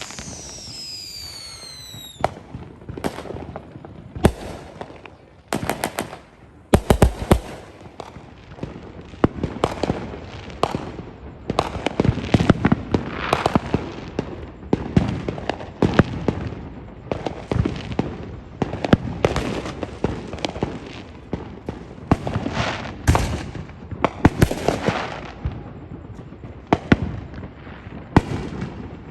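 Fireworks going off in quick succession: a steady string of sharp bangs and crackling pops, with several falling whistles in the first couple of seconds.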